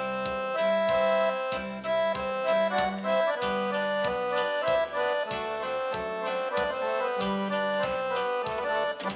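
Electronic keyboard playing an accordion sound: a melody with chords over a steady bass beat of about three strokes a second, imitating the feel of a sanfona. The playing stops abruptly near the end.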